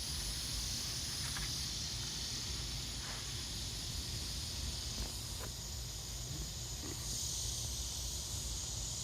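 Steady, high-pitched outdoor insect chorus over a low rumble, with a few faint short pops.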